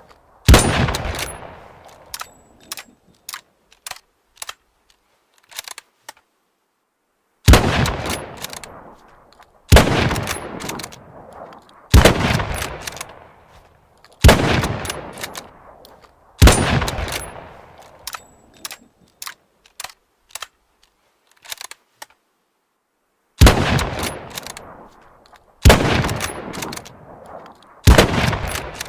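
Mosin-Nagant bolt-action rifle (7.62×54mmR) firing nine shots, each trailing off in a long echo: one near the start, then a string of five about two seconds apart, and three more near the end. Short, sharp clicks sound between the shots as the bolt is worked.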